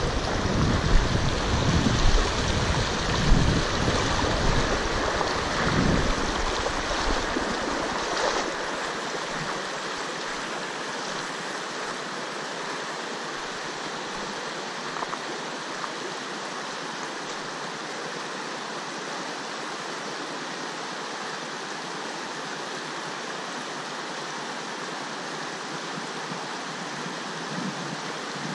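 Steady rush of a flowing river. For the first eight seconds or so, wind buffets the microphone with low rumbling and a few thumps, then only the even water noise is left.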